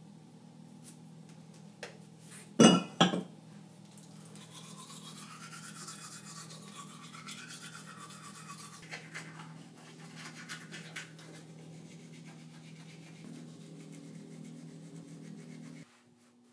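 Two sharp clicks about three seconds in, then a toothbrush scrubbing teeth for about ten seconds. A low steady hum runs underneath and cuts off near the end.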